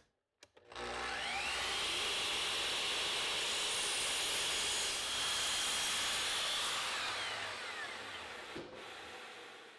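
Sliding miter saw crosscutting a wooden desk apron to length: the motor spins up with a rising whine, runs steady through the cut, then is switched off and winds down slowly.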